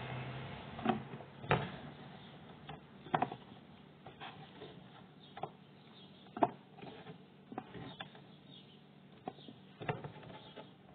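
Zucchini slices being set down by hand into a clear container of sliced zucchini, giving irregular light clicks and knocks, about one a second, with the sharpest ones about one and a half, three and six seconds in.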